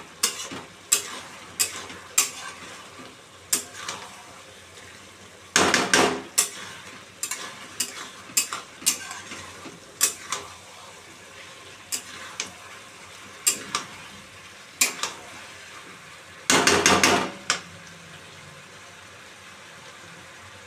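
Flat metal spatula scraping and clanking against a metal kadai as chicken and onions are stirred, over a steady sizzle of frying. There are two longer runs of scraping, about six and seventeen seconds in, and the clanking stops near the end, leaving only the sizzle.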